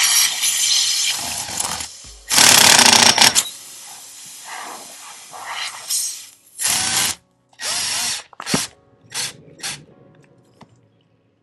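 Cordless impact driver running in repeated bursts, hammering a Slime reaming or plug-insertion bit into the puncture in a tire; the loudest burst comes about two seconds in, then shorter bursts follow and die away.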